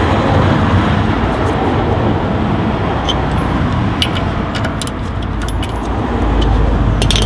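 A few sharp metal clicks and clinks from a ring spanner and socket wrench on the panhard arm's 24 mm nut and bolt, about three to four and a half seconds in and again near the end, over a steady rushing background noise that swells near the end.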